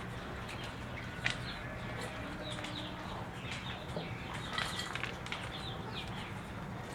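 Young agouti giving a string of short, high chirping squeaks at irregular intervals after being restrained, over a steady low hum.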